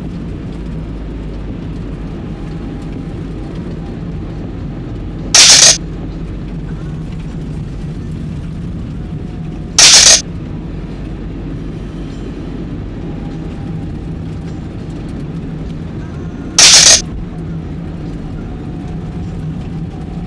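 Steady low rumble of a car driving, heard from inside the cabin. Three times it is broken by a loud, short hiss lasting about half a second.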